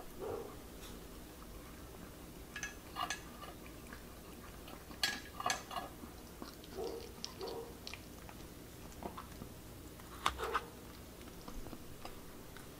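A chihuahua eating from a stainless steel bowl: chewing and licking, with a metal fork clinking against the bowl in short clusters every few seconds.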